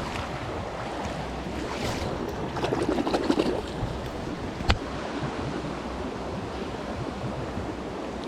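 Steady rush of flowing stream water, with a few handling clicks and knocks about three seconds in and one sharp click a little later.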